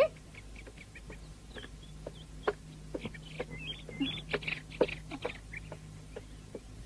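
Cartoon soundtrack of many short chirps and squeaks at an uneven pace, thickest in the middle, over a faint steady hum.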